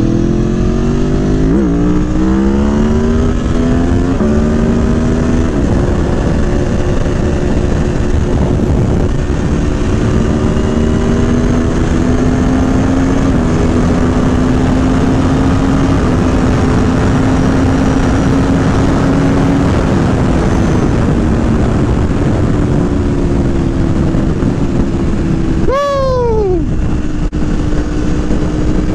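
Motorcycle engine pulling up through a few gears, its pitch climbing and dropping back at each shift over the first several seconds, then holding a steady cruise. About 26 seconds in, another vehicle passes quickly, its pitch falling sharply as it goes by.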